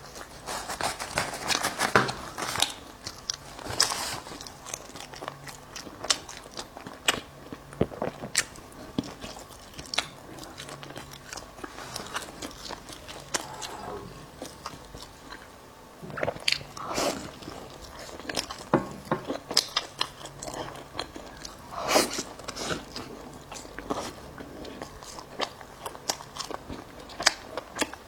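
Close-miked biting and chewing of a bagel: irregular crunchy bites and chews, with a quieter spell about halfway through.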